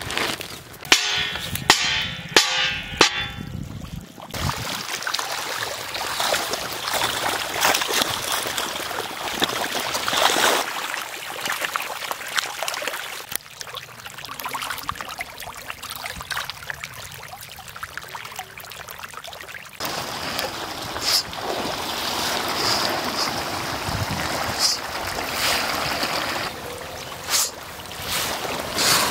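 A dense shoal of tilapia thrashing at the pond surface in a feeding frenzy, a continuous mass of splashing water. In the first few seconds a woven plastic feed bag crinkles as it is handled.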